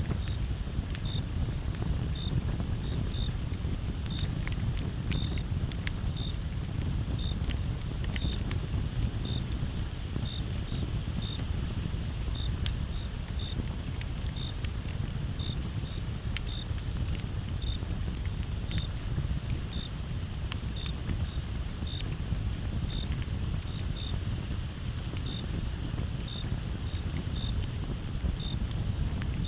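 Campfire crackling: wood popping in sharp, irregular clicks over a low steady rumble. Crickets chirp throughout, a steady high trill with separate short high chirps repeating about once or twice a second.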